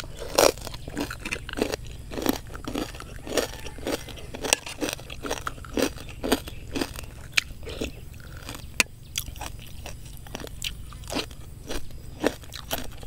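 A person chewing crunchy food close to the microphone, mouth sounds with crisp crunches about twice a second.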